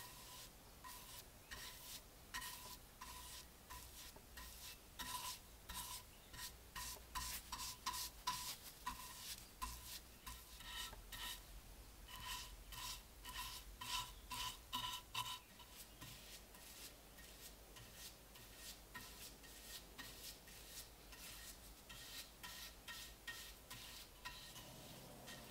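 A bristle paintbrush stroking a dark wood finish onto a wooden cutter base, with quick repeated brushing strokes about two a second, busiest in the middle.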